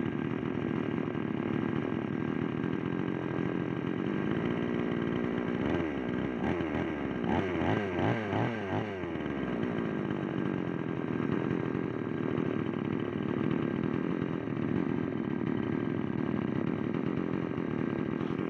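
Two-stroke chainsaw engine idling after a rebuild with a new piston, rings and cylinder to replace broken rings. About six seconds in it is revved several times in quick succession, then settles back to idle.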